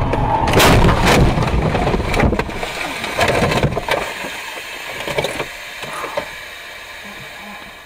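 Car crash heard from inside the car: a loud impact about half a second in, then scraping and clattering that die away over the next few seconds.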